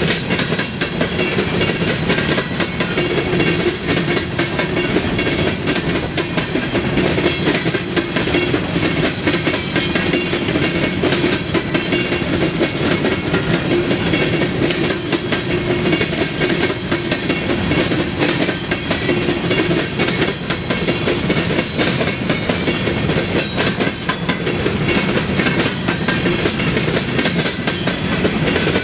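An empty coal train's cars rolling past: a steady rumble of steel wheels on rail with a rapid, continuous clickety-clack of wheels over the rail joints.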